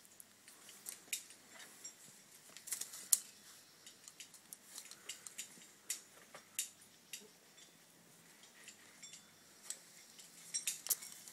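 Carabiners and quickdraws on a climber's harness clinking lightly and irregularly as he moves, with many short, sharp metallic clicks; the loudest comes about 3 seconds in.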